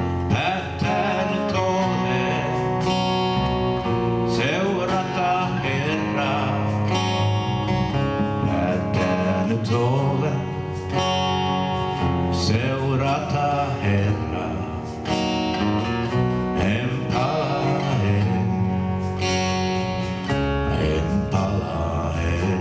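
Live music: an acoustic-electric guitar played with a bass guitar, a continuous slow song.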